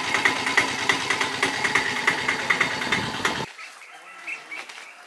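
A small engine running with a regular knocking beat, about six or seven knocks a second, that stops abruptly about three and a half seconds in, leaving a much quieter background.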